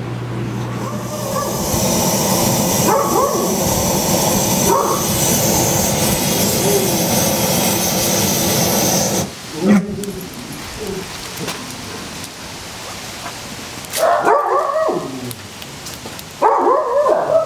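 Handheld gas torch hissing as it lights charcoal briquettes in a chimney starter, cutting off abruptly about nine seconds in. Short whines and yips from a dog come over the hiss and in two brief bursts near the end.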